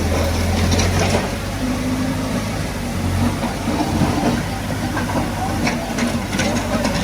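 Diesel engine of heavy earthmoving equipment running steadily, with a few short knocks about a second in and again near the end.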